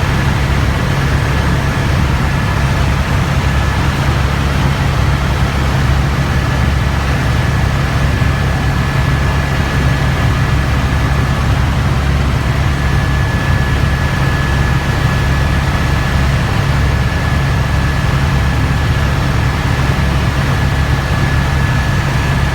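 Helicopter in flight: loud, steady engine and rotor noise, heaviest in the low end, with a thin, high, steady whine.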